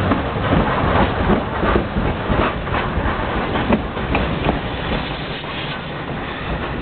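Heritage railway train running along the track, its wheels clicking over the rails in a steady rumble that fades slightly toward the end.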